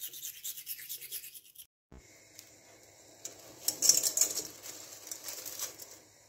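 Quick, even back-and-forth scrubbing strokes of teeth being brushed, cut off abruptly under two seconds in. After a short silence comes faint rustling and handling noise, with a louder noisy spell about four seconds in.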